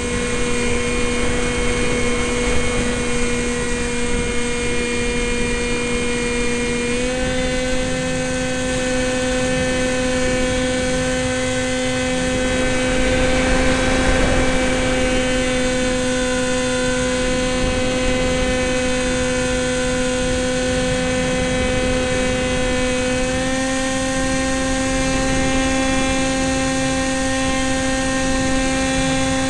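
Sky Surfer RC plane's electric motor and propeller whining steadily in flight, with wind noise. The pitch steps up slightly twice, about a quarter of the way in and again about three-quarters through, as the throttle is raised.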